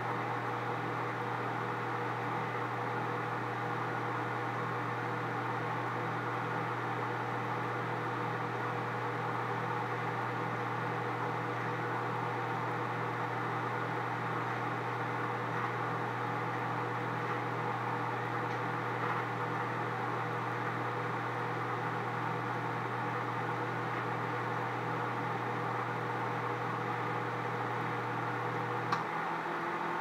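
Microwave oven running while it heats a banana: a steady electrical hum under even fan noise. Near the end there is a click, and the deep part of the hum drops out.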